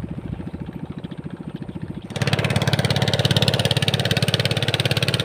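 Small boat's engine running with a fast, even chugging beat, suddenly much louder about two seconds in as it comes close.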